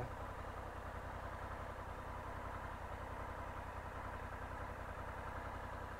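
Honda Africa Twin's parallel-twin engine idling steadily at a standstill, a low even pulse.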